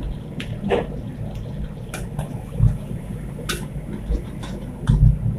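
Metal spatula scraping and clinking against a large steel wok as sliced onions are stirred in oil, a handful of sharp scrapes spread through, over a steady low rumble.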